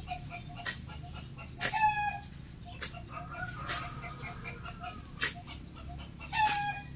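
Grass and weeds being cut by hand with a blade: sharp swishing strokes through the vegetation, about one a second, with no motor. A bird gives two short calls, one about two seconds in and one near the end.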